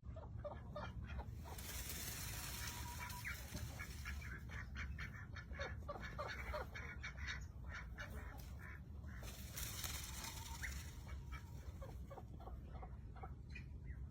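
Peafowl calling: a run of short calls with scattered clicks, and a stretch of hissing rustle about two seconds in and again about ten seconds in, over a steady low hum.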